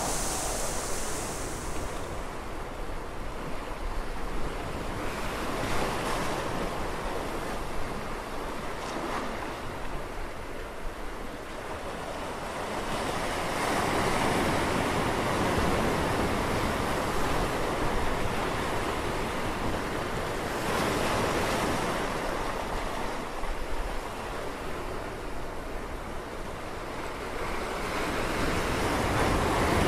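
Ocean waves breaking and washing on a shore, swelling and easing off every several seconds.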